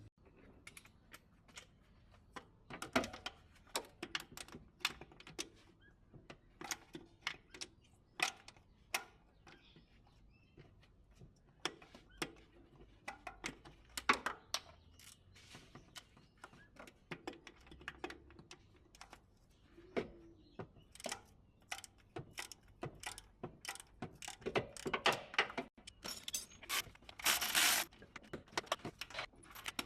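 Metal hand tools and car parts clinking and knocking in irregular single clicks and taps, with a couple of longer rasping bursts near the end.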